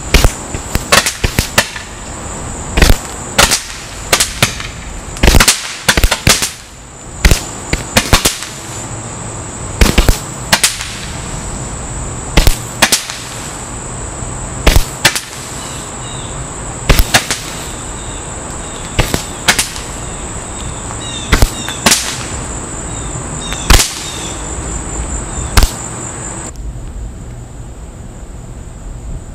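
A bundle of Roman candles taped together firing, a sharp pop every second or two with a steady high hiss underneath; both stop about three seconds before the end.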